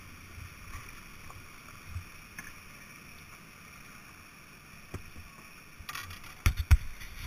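Steady rush of white water from the falls and rapids. Near the end comes a run of sharp, loud knocks as the plastic kayak's bow and paddle hit the rocks at the bank.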